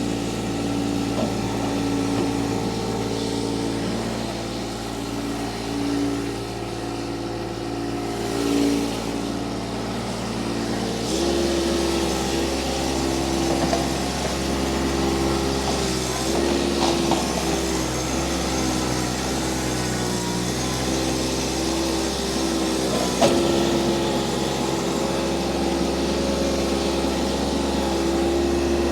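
Toro Dingo TX1000 mini skid steer's engine running steadily. Its note changes abruptly about 11 seconds in, wavers for several seconds, and changes again about 23 seconds in.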